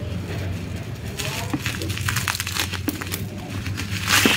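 Plastic bubble wrap being pulled and crumpled by hand, in irregular crinkles and crackles, loudest about four seconds in.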